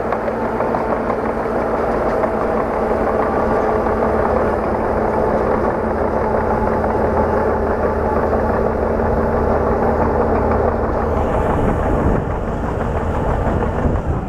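Diesel engine of a heavy earthmoving machine running steadily, with a slight change in its sound about eleven seconds in.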